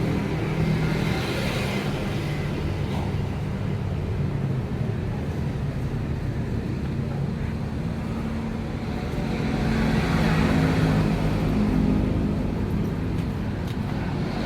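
Road traffic: motor vehicles running and passing, a continuous engine rumble that swells as a vehicle goes by about ten seconds in.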